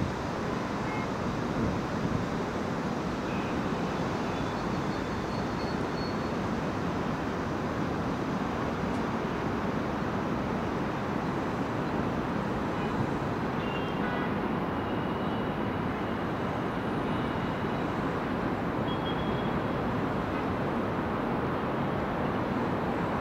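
Steady rumble of heavy vehicle engines and road traffic, with a few faint brief high squeaks.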